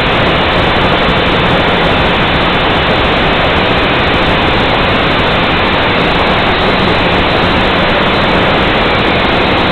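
Steady, loud whirring hiss of the Nine Eagles Galaxy Visitor 3 quadcopter's motors and propellers in flight, with a faint low hum underneath.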